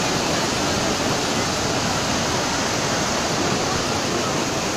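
Floodwater rushing steadily, as a swollen river in spate: an even, unbroken wash of water noise.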